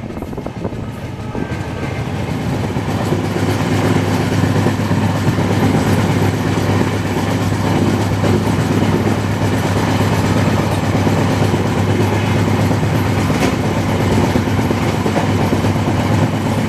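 Indian Railways AC double-decker passenger train running at speed, heard from a coach: a steady rumble of wheels on the track with a steady low hum, growing louder over the first couple of seconds and then holding.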